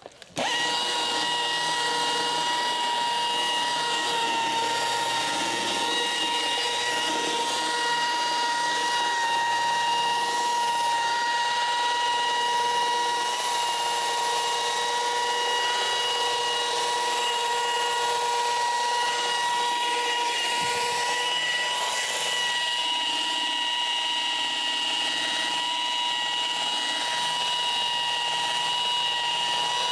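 Electric machine polisher switching on about half a second in and then running steadily on the paint, giving an even, high-pitched whine.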